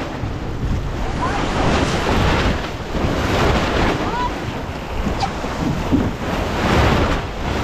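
Wind buffeting the microphone over the steady rush of water along a sailboat's hull, the boat running downwind under spinnaker at about seven knots.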